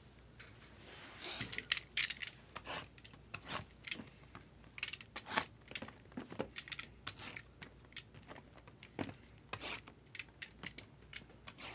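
Sealed cardboard trading-card boxes being picked up and handled: irregular clicks, taps and crinkles of cardboard and wrapping.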